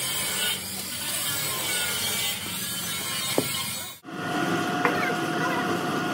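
Workshop machinery running: a steady mechanical noise with scattered clicks, broken off by an edit about four seconds in and replaced by a different machine's steady hum with a thin whine over it.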